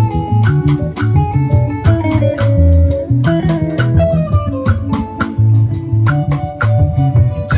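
Live band playing through the stage sound system: a guitar picking a run of quick notes over a bass guitar line, with a steady drum beat.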